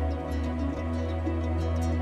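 Background music: slow instrumental music with long held notes over a steady low bass note.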